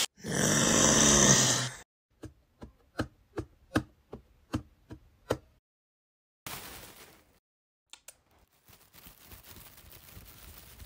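A loud dinosaur roar sound effect lasting under two seconds, then about ten heavy thuds at an even pace of two to three a second.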